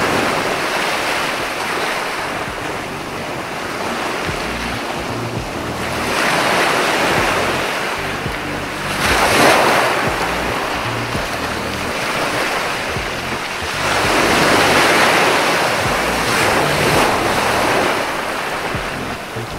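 Ocean surf breaking on a beach, several waves surging in and falling back, the loudest about halfway through, with wind buffeting the microphone.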